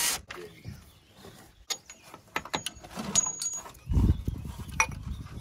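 Scattered sharp clicks and light knocks of hand work under a car, with a louder, deeper thump about four seconds in. A couple of brief, faint high chirps sound about two and three seconds in.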